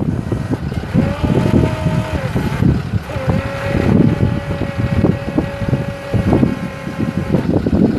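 Wind buffeting the microphone, with a steady whine from the Versalift boom's hydraulics as the boom is worked. The whine starts about a second in, breaks off briefly, resumes a little lower and stops near the end.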